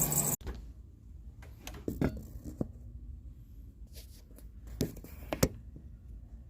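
A Sole F63 treadmill's high-pitched squeak, which the owner puts down to the drive motor belt, cuts off sharply about half a second in. Then comes a quiet room with a low hum and a few scattered short clicks and knocks.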